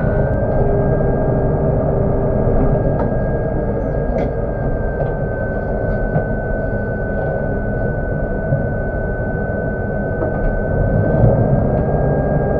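SLC 2200 combine harvester running steadily: a constant diesel engine and machinery drone with a steady high whine over it.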